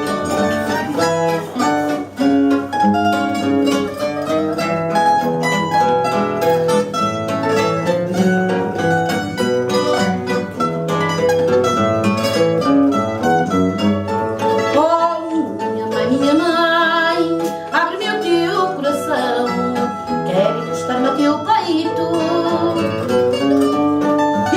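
Fado accompaniment on Portuguese guitar and classical guitar (viola de fado), playing a busy plucked instrumental passage. About halfway through, the melody turns to wavering, bending notes.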